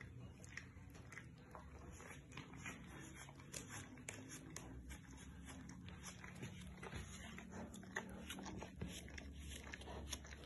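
Labrador retriever licking oil off its paw, a faint run of irregular wet licks and tongue clicks over a low steady hum.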